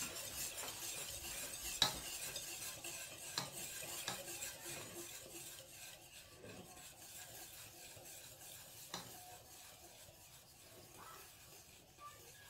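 A metal spoon stirring cake batter in an enamel pot, scraping steadily with a few sharp clinks against the pot's side. The stirring grows fainter after the first few seconds.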